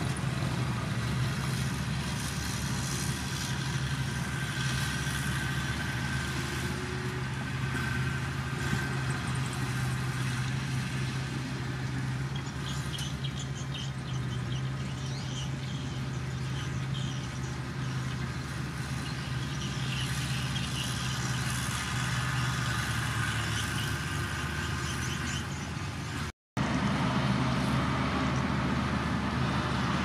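Small Komatsu crawler bulldozer's diesel engine running steadily under load with a low hum while it pushes soil. The sound drops out for an instant near the end.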